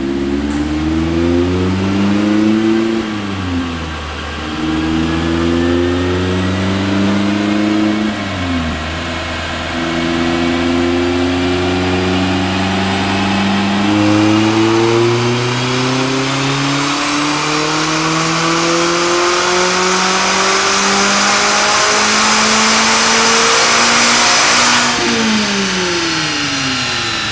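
A 2019 Mazda MX-5 Miata RF's 2.0-litre four-cylinder, breathing through a Goodwin Racing RoadsterSport SuperStreet axle-back exhaust, under full throttle on a chassis dyno. The revs climb and drop twice as it is shifted up, then rise in one long steady pull. Near the end the throttle is shut and the revs fall away. The dyno operator suspects an obstruction in this exhaust, from how its tone changes during the pull.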